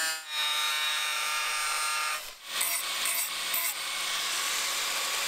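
Electric angle grinder grinding the steel blade of a coconut-husking tool to shape a new sharp edge where the old one broke off. A steady grinding sound, broken by two short gaps, one just after the start and one about halfway.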